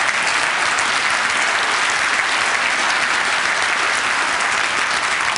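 A large audience applauding: many hands clapping at once in a steady, dense patter.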